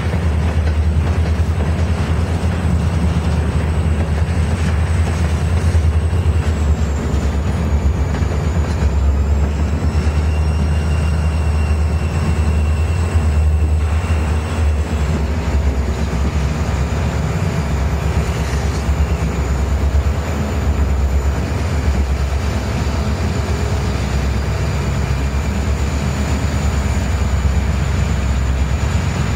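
Diesel-hauled train running steadily with a deep, continuous rumble and a thin high whine over it.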